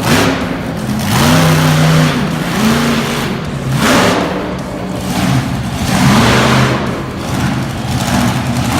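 Monster truck engine revving hard in repeated surges, its loudness rising and falling several times.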